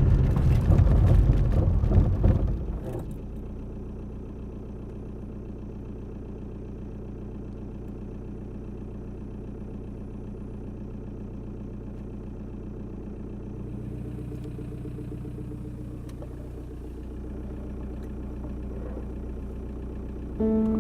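A loud, noisy rush for about the first three seconds, then a car engine running steadily with a low, even hum.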